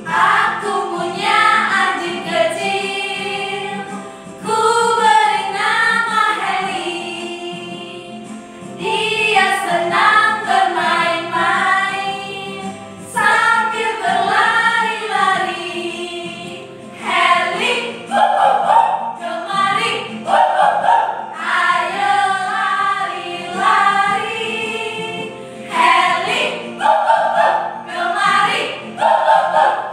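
Several women singing a children's song together in unison, with electronic keyboard accompaniment.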